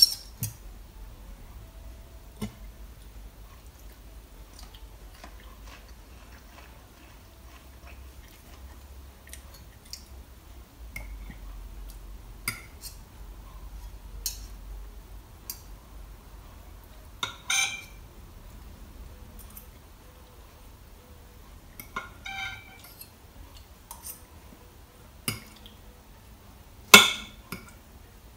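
Scattered clinks and scrapes of cutlery on a plate during eating, about a dozen separate short knocks spaced a few seconds apart, the loudest one near the end.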